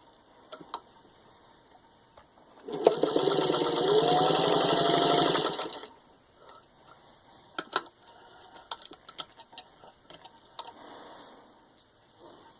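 1936 Singer 15-91 sewing machine stitching through four layers of vinyl upholstery. Starting about three seconds in, it runs fast for about three seconds with a rising motor whine over a rapid needle rhythm, then stops. Later come a few light clicks and taps.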